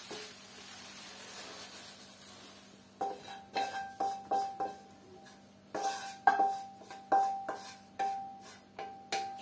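Bamboo spatula knocking and scraping tuna and peas out of a wok, about two knocks a second from about three seconds in, each knock leaving the pan ringing briefly.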